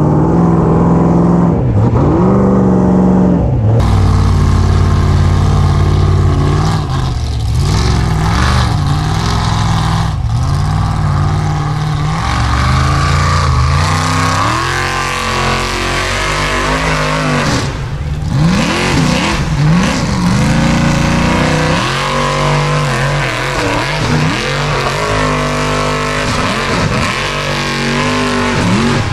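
Formula Offroad buggy's engine revving hard under load on a steep dirt hill climb, its pitch swinging up and down again and again as the throttle is worked.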